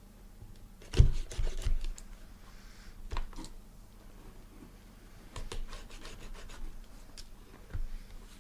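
Trading card packaging and cards handled on a table: rubbing and scratching with scattered clicks and light knocks, the loudest cluster about a second in.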